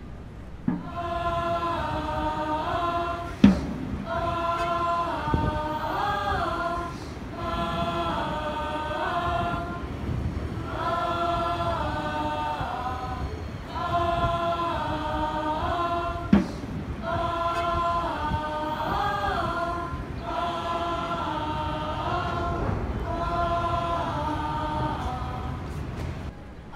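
A group of voices chanting together in harmony, the same short sung phrase repeated every couple of seconds with brief breaks between. Two sharp knocks cut through, a few seconds in and again about halfway.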